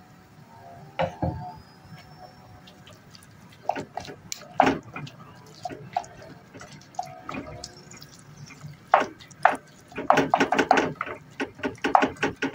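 Wooden spoon stirring and mashing wet grilled eggplant in a glazed clay pot, with irregular knocks and scrapes against the clay and wet squelching from the mash. The knocks come thick and fast in the last few seconds.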